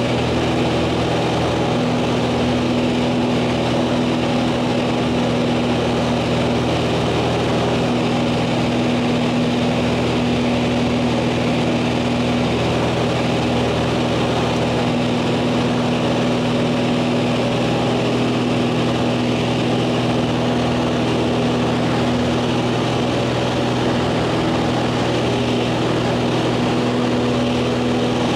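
Single-engine propeller aircraft's engine and propeller droning steadily, heard inside the cabin during the climb after takeoff.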